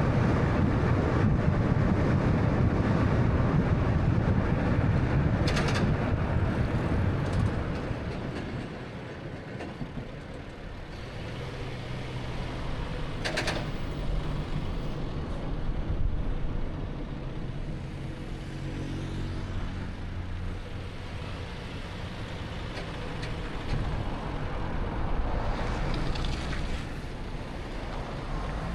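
Road and tyre noise of a 2013 Honda Fit on the move. It is loud for the first several seconds, then drops off about eight seconds in as the car slows, leaving the low steady hum of its 1.3-litre engine. Two short hissing sounds stand out, one about five seconds in and one about thirteen seconds in.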